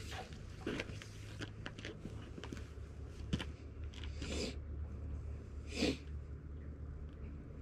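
Magnet-fishing rope being hauled in hand over hand, with rustling and scraping of the rope and a canvas work jacket in short bursts, the loudest near the end, over a low steady rumble.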